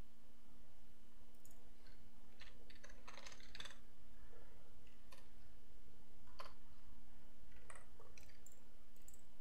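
Computer keyboard typing, a quick run of keystrokes about two to four seconds in, followed by scattered single clicks. A steady low hum runs under it all.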